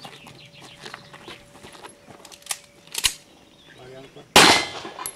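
A handgun shot about four seconds in, the first of a shooter's string after the start signal, preceded by quiet shuffling and a sharp click about three seconds in.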